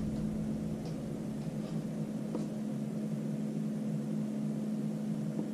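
A steady low hum with a constant tone, with no distinct events.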